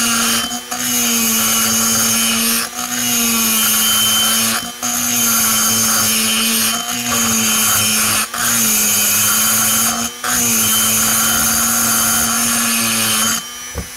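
Pencil grinder running at steady speed, its small bit cutting metal inside the port of a chainsaw cylinder being hand-ported: a steady whine with a hiss of cutting, dipping briefly about every two seconds. It stops near the end.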